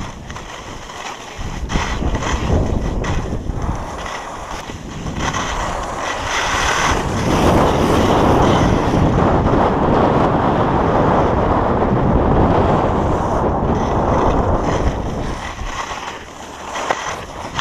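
Wind rushing over an action camera's microphone during a downhill ski run, with the skis hissing and scraping over the snow. The rush swells louder about seven seconds in and eases off again near the end.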